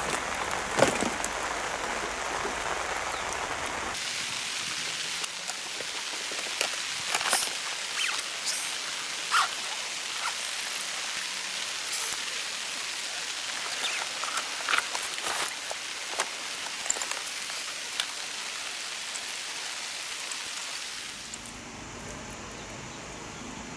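Rain falling steadily, a continuous hiss with scattered sharp taps of drops.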